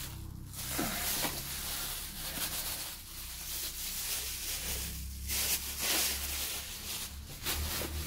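Thin plastic bags rustling and crinkling as they are handled, in irregular bursts over a steady low hum.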